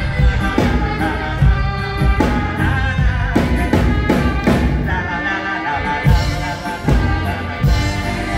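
Live amplified polka band playing: drum kit keeping a steady beat about twice a second under keyboard, trumpet and saxophone.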